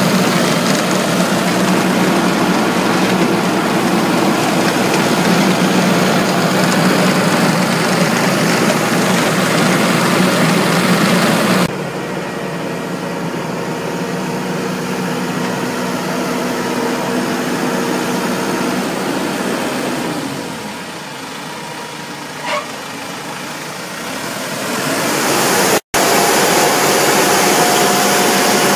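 Pattenden Falcon self-propelled apple harvester running, its engine and pickup conveyors making a steady mechanical noise. The level drops suddenly about a third of the way through, stays quieter for a while, and comes back loud near the end after a brief break.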